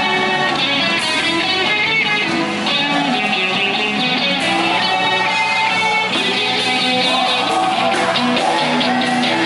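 Worship music playing, a steady run of held and gliding melodic notes.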